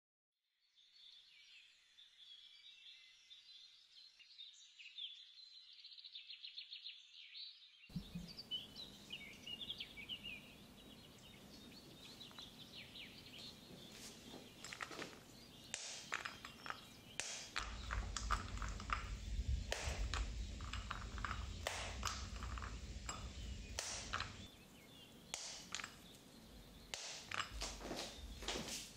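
Small birds chirping and twittering over a background of outdoor noise, which widens from about eight seconds in. In the second half come sharp clicks and knocks as dark chocolate pieces are broken and handled in a glass bowl, with a low rumble for several seconds in the middle.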